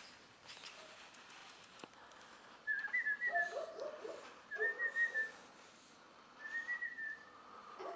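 Bulldog puppies whimpering and yipping in short clusters, with three short, high, whistle-like notes about two seconds apart.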